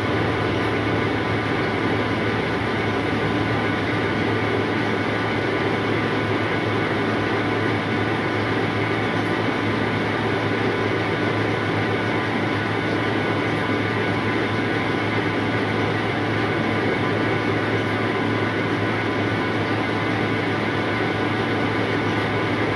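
Rice seed sorting machine running steadily: a constant machine hum with a rushing noise from its blower.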